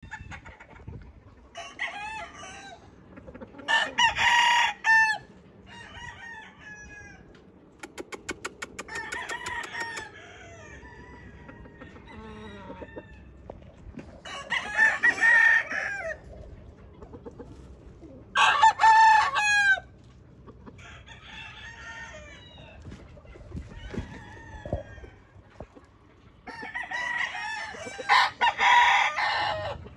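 Roundhead gamecocks crowing, four loud crows spread across the stretch with quieter calls and clucks from other roosters between them. A fast run of ticks comes about a third of the way through.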